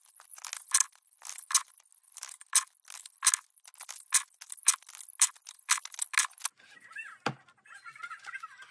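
Sheets of printed paper rustling and flapping in quick crisp strokes about twice a second as they are handled and fed into a binding machine, ending with a single harder knock about seven seconds in.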